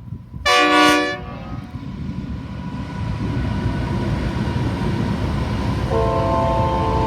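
Train horn sounding a short, loud chord of several tones about half a second in, followed by the low rumble of the train growing louder, and a second, quieter horn chord near the end.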